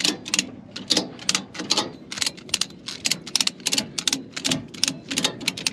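A rapid, uneven series of sharp mechanical clicks, about four to five a second, running on without a break.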